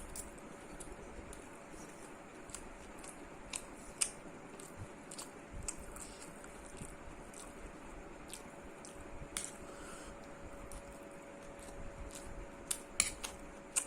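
A person eating chicken fried rice and kabab: chewing and mouth sounds with scattered short clicks, which come louder and closer together near the end, over a faint steady hum.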